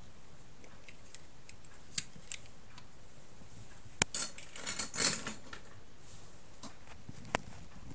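Handling noise from the camera being moved about: a few sharp clicks and a short rustling scrape about halfway through, over a steady low hiss.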